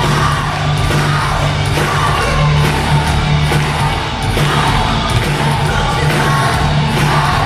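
Live concert music: a band playing at full volume with a woman singing strongly over it.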